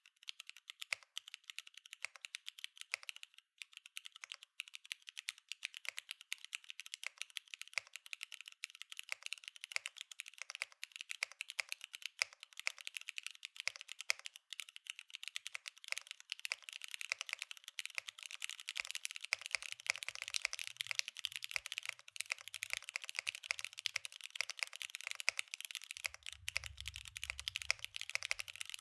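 Continuous fast typing on a Mode Encore mechanical keyboard with Cherry MX2A Orange switches on a carbon fiber plate, wave-spring mounted with no foams: a dense, unbroken run of key strokes.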